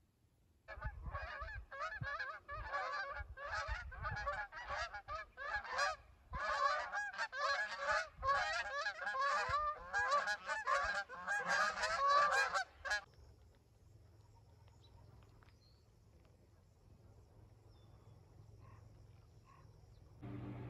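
A large flock of big birds calling as it flies over, many voices overlapping continuously for about twelve seconds, then stopping.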